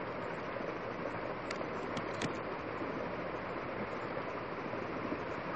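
Steady hiss of the recording's background noise, with three faint short clicks about one and a half to two and a quarter seconds in.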